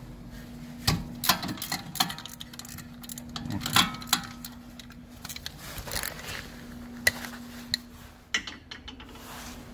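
Hand tools clicking and clinking on metal while the rear wheel hub assembly's mounting bolts are loosened and backed out. The clinks are sharp and irregular, loudest about a second in and again around four seconds, over a faint steady hum.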